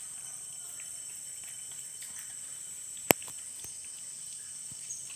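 A puppy eating soft rice porridge from a metal plate: small wet clicks of mouth and tongue, with one sharp click about three seconds in and a lighter one near the end. A steady high insect drone runs underneath.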